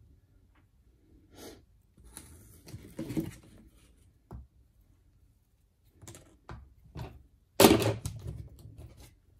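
Painting tools handled at a glass palette: a palette knife, brush and paint tube giving scattered small knocks and short scrapes, the loudest a longer scrape near the end.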